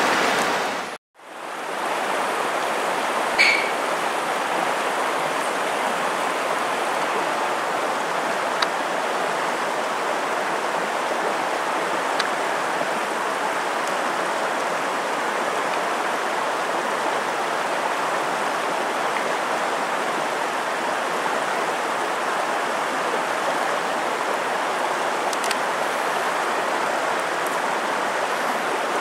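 Steady rush of flowing river water, starting after a brief drop-out about a second in, with one short sharp sound a few seconds in.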